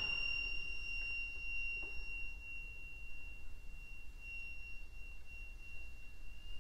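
A single high, pure tone held steadily for several seconds by the chamber ensemble, in a quiet passage of contemporary orchestral music.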